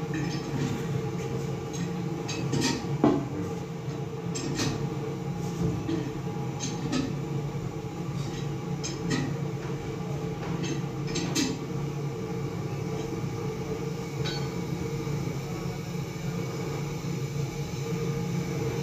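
A steady mechanical hum, like a motor running, with scattered clicks and light knocks of tools or metal. One sharper knock comes about three seconds in.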